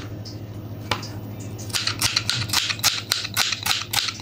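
Kitchen knife slicing a red onion on a plastic chopping board: one tap about a second in, then quick even cuts of the blade striking the board, about five or six a second, starting near the middle.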